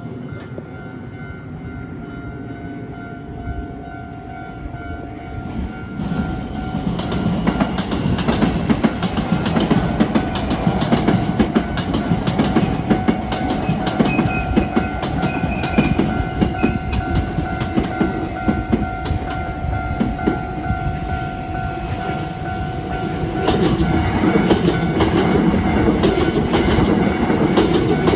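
Hankyu electric trains passing over a level crossing, wheels clacking over the rail joints: one comes through about six seconds in and another near the end. The crossing's warning bell rings steadily under them.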